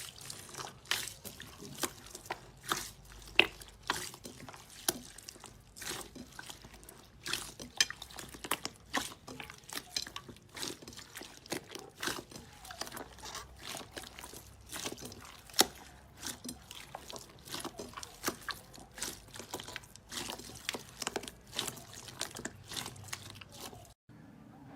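Slime being handled and squished, a dense irregular run of wet clicks, pops and crackles that stops abruptly near the end.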